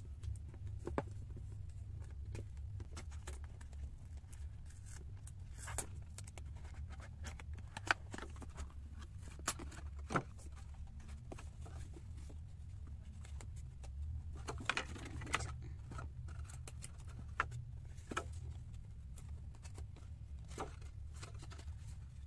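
Hands handling a cardboard earbud box and its contents: scattered light clicks, taps and rustles as the box flap is opened and the plastic earbuds and charging case are lifted from the foam tray, with a busier patch of handling about halfway through. A steady low hum runs underneath.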